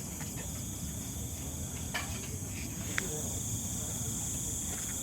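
Steady chorus of insects shrilling in several high pitches, over a low rumble, with a couple of faint clicks about two and three seconds in.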